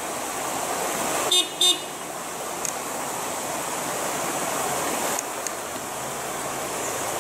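Two short toots of a vehicle horn in quick succession about a second and a half in, over the steady rush of water flowing across a shallow creek ford.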